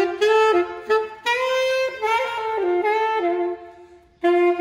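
A wind instrument played live: a short melody of separate held notes with small gaps between them, pausing briefly near the end before starting again.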